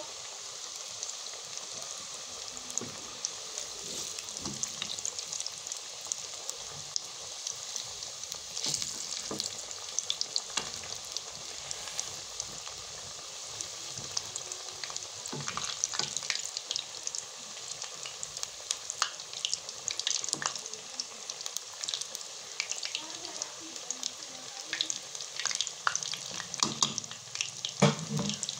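Egg pakoras deep-frying in hot oil: a steady sizzle with frequent small pops and crackles.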